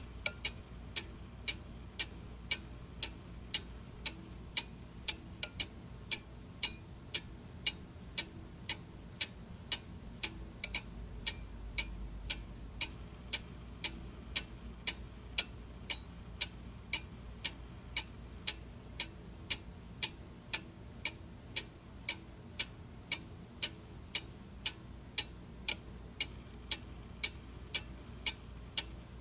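Clock ticking steadily at an even pace, about two sharp ticks a second.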